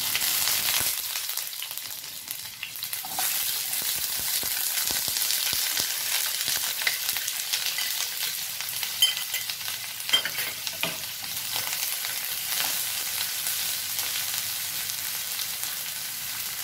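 Sliced onions dropping into hot mustard oil in a frying pan and sizzling, the frying hiss starting suddenly as they hit and running on steadily. A few sharp knocks a little past halfway.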